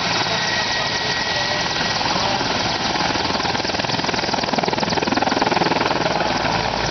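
Mil Mi-24 attack helicopter flying a low display pass, its turbines and main rotor giving a steady, rapid chopping that grows a little louder about five seconds in.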